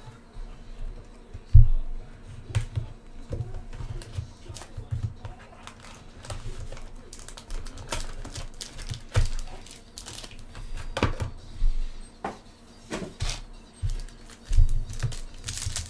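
A cardboard trading-card hobby box being opened and its foil-wrapped packs handled on a table: irregular clicks, taps and rustles, with one sharp knock about a second and a half in.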